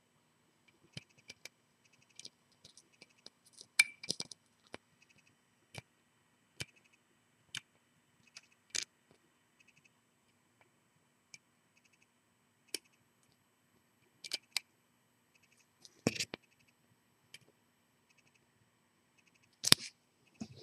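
Small metal clicks and scrapes of a hook pick working the pins of a 5-pin U-change mortise lock cylinder under a tension bar, the lock not yet open. The clicks come singly and irregularly, a few louder ones around four seconds in, around sixteen seconds and near the end.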